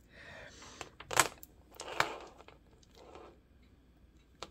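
Hands handling a strand of plastic acrylic beads: a rustle, then two sharp clicks of beads knocking, about one and two seconds in, with fainter rustling after.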